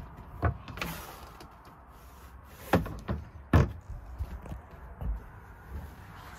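Knocks and thumps of a laminated caravan storage lid being handled by its finger hole, with two louder knocks around the middle.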